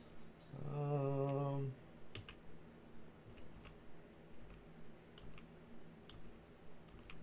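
A man hums one steady note for about a second. Then a computer mouse clicks over and over, roughly two clicks a second, as he clicks through photos.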